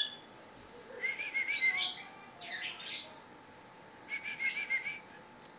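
Javan myna calling: two short runs of quick wavering chirps, about a second each, with a brief harsh rasp between them.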